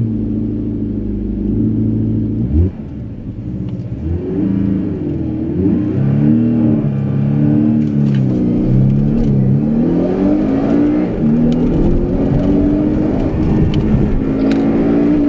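Porsche 718 Cayman's 2.0-litre turbocharged flat-four engine under acceleration through its PDK dual-clutch gearbox: the engine note drops abruptly at a shift about two and a half seconds in, then rises and falls several times before climbing again near the end.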